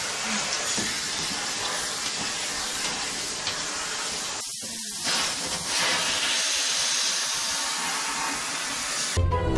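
Vacuum cleaner running with a steady hiss, with a short break about halfway through. Music comes in just before the end.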